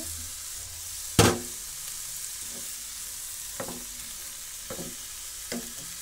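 Sliced Chinese cabbage and carrot sizzling steadily in butter in a frying pan, with one sharp knock about a second in as the rest of the cabbage is tipped in from a plate. Then a silicone spatula stirs and taps against the pan a few times.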